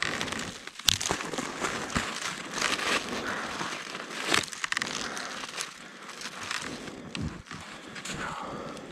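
Dry snow crunching and winter clothing rustling as someone moves about in deep snow, with scattered sharp knocks and scrapes, the sharpest about a second in and again a little past four seconds.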